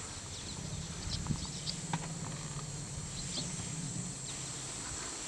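A desert-adapted African bush elephant gives a low rumble lasting about four seconds. Twigs snap and feet scuff on the sandy ground as the herd feeds.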